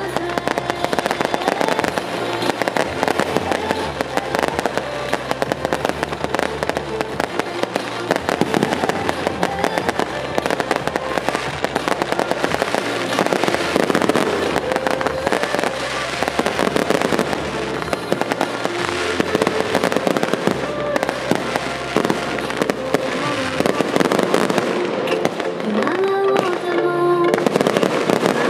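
Fireworks crackling and popping continuously, with show music playing underneath.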